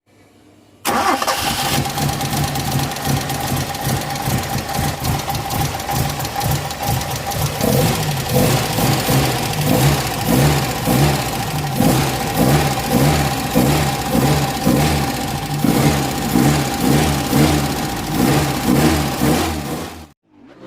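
Custom Toyota Corolla car engine, fitted with a Suzuki Shogun motorcycle CDI ignition, running at a steady idle with an even pulsing beat. It cuts in suddenly about a second in and stops abruptly just before the end.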